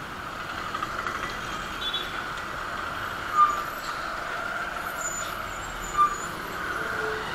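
Busy city road traffic heard from a moving motorcycle: a steady din of engines and tyres, with two short horn beeps, one about three and a half seconds in and one about six seconds in.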